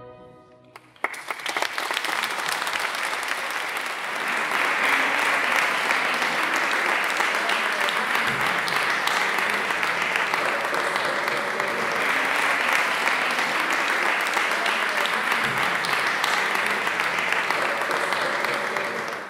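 The tail of the orchestra's final chord fades out. About a second in, an audience breaks into applause, which grows a little louder a few seconds later and then goes on steadily.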